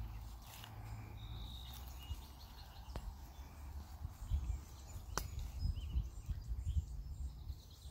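Outdoor ambience: a low, uneven rumble of wind on the microphone, with a few faint, short bird chirps and a couple of sharp clicks.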